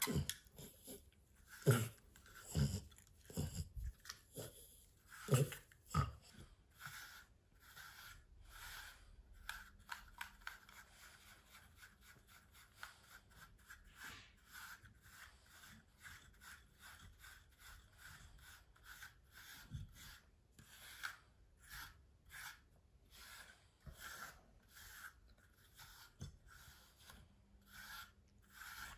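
Short, scratchy strokes of a grooming brush over a French bulldog's short coat, coming fast and irregularly. A few heavier thumps fall in the first six seconds.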